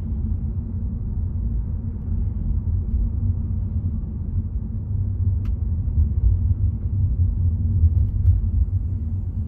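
Steady low road rumble of a car being driven, with a faint click about halfway through.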